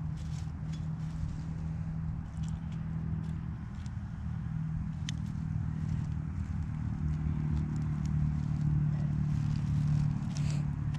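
Gloved hands digging and sifting loose soil and turf in a small hole, with faint scratching and crackling and one sharper click about halfway. Under it runs a steady low mechanical hum that grows somewhat louder in the second half.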